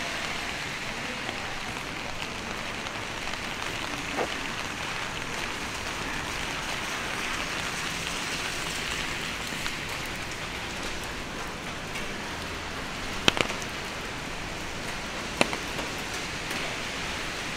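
Steady rain falling, an even hiss, with a few sharp clicks near the end, a double one then a single one.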